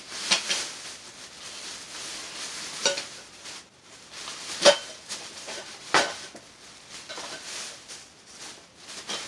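Thin plastic shopping bag rustling and crinkling as items are packed into it, with four sharp clinks of hard objects knocking together, the loudest about halfway through.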